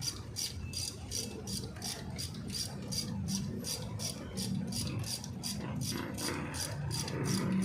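A steady rapid ticking, about four ticks a second, over low, irregular clatter from work on an engine.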